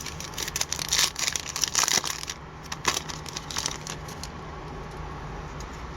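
Wrapper of a 2011-12 Upper Deck Series 1 hockey card pack being torn open and crinkled. There is a dense run of crackling for about the first two seconds, then a few faint rustles and clicks, over a steady low hum.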